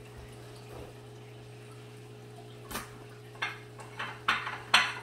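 Paper towel rustling and rubbing over a ceramic saucer, wiping it out. About halfway through there is a sharp scrape, then a quick run of short swipes, the loudest near the end. A steady low hum runs underneath.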